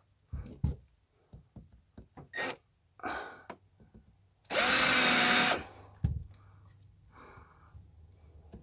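Cordless drill running in one short burst of about a second at a steady speed, with handling clicks and knocks before it.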